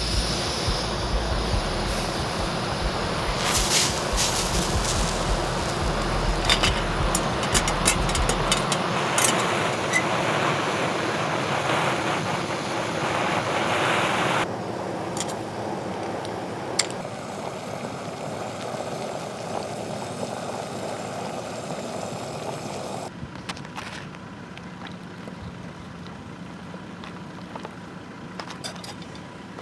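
A truck driving: steady road and engine noise, which changes abruptly and drops in level about 9, 14 and 23 seconds in.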